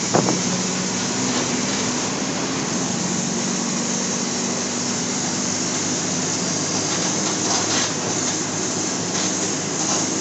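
Mercedes-Benz OF-1722 city bus's diesel engine running steadily, heard from inside the passenger cabin. There is a sharp knock just after the start and light rattles near the end.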